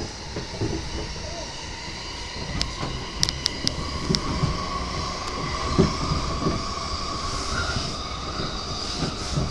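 Running noise inside a JR East E235-series Yamanote Line passenger car: a steady wheel-and-track rumble, with a few sharp clicks a few seconds in and a thin steady whine from about four seconds in.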